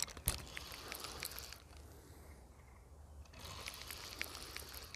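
Fishing reel on a feeder rod being cranked, a faint run of quick small clicks, winding in a rig that has caught lake weed. The winding comes in two spells with a pause of about two seconds in the middle.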